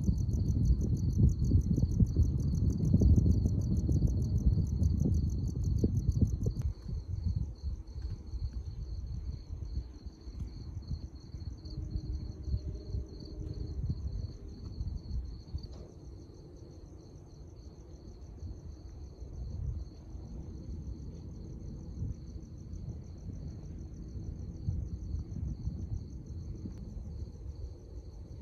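Crickets chirping in steady pulsing trills, over a low rumble that is loudest for the first six or seven seconds and then dies down.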